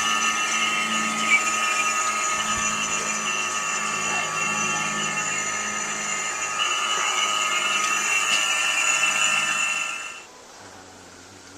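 A motor-driven machine running with a steady whine over a low hum, cutting off sharply about ten seconds in.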